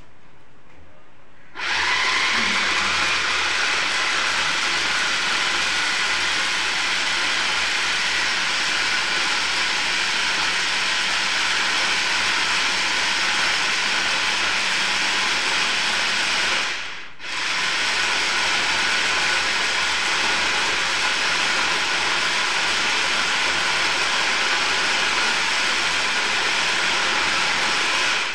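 Small electric kitchen chopper running at full speed, blending the boiled soup vegetables with their water. It starts about a second and a half in, stops briefly near the middle, starts again and runs on to the end.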